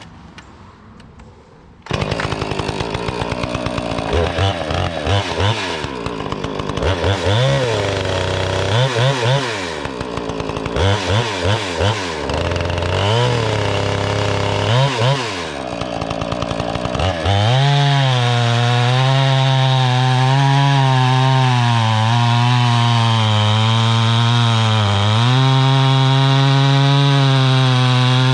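Two-stroke chainsaw with a freshly sharpened chain starting up about two seconds in. It idles with repeated short throttle blips, then from about two-thirds of the way in runs steadily at high throttle while cutting wood, its pitch dipping briefly under load a couple of times.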